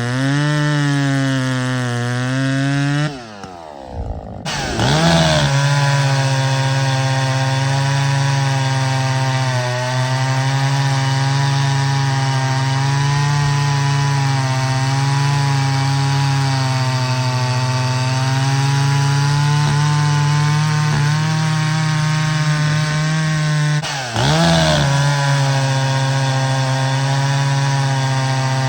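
Muffler-modified Echo 680 chainsaw running flat out, cutting through firewood. About three seconds in the engine drops off sharply and revs back up, and it dips and recovers once more later on.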